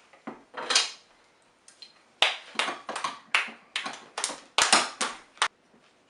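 Manual can opener being worked around a tin can lid: a run of sharp clicks about three a second, after a couple of clicks in the first second.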